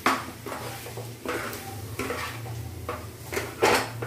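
Steel spatula scraping and knocking against a frying pan while stirring pasta and vegetables, in a string of uneven strokes, the loudest just before the end.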